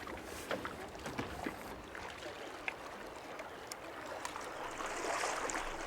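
Water sloshing and splashing, with scattered light knocks and clicks.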